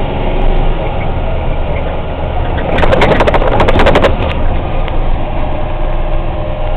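Heavy military truck's engine and road noise as a steady low drone heard inside the cab. About three seconds in comes a burst of sharp rattling and clattering lasting about a second and a half, as the cab or camera is jolted.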